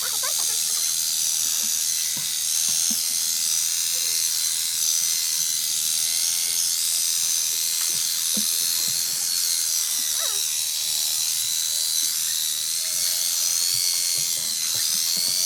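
Electric sheep shears running steadily with a high-pitched whine.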